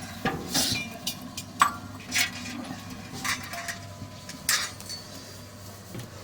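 Kitchen vessels clinking and knocking as they are handled: about half a dozen irregular sharp strikes, a few ringing briefly.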